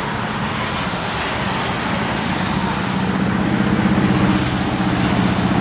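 Vans and an SUV driving past on a highway, with steady tyre and engine noise. An engine hum swells as the nearest vehicle goes by, about four seconds in.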